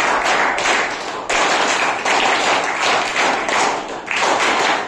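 A crowd clapping together in a set rhythm, the group's 'ITC' clap, in repeated rounds with short breaks about a second in and near the end.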